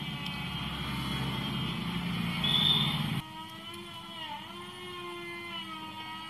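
A motor vehicle engine running, growing louder until it cuts off abruptly about three seconds in. Fainter steady, wavering tones follow.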